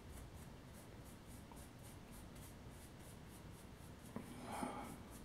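Faint, quick scratching of a paintbrush being dry-brushed back and forth across a painted model road, in short regular strokes, with a slightly louder scrape about four seconds in.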